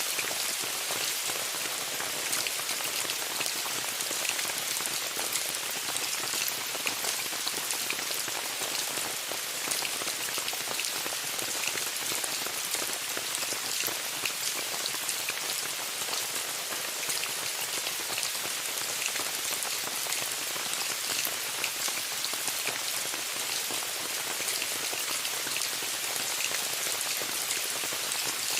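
Steady rain falling on a tent: an even hiss with many separate drop ticks scattered through it.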